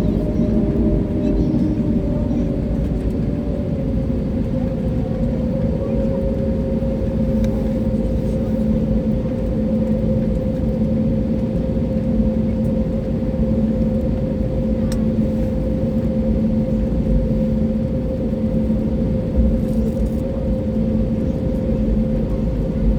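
Airbus A320 cabin noise on the ground before takeoff: a steady low rumble with two steady hums, one of which settles slightly lower in pitch about five seconds in.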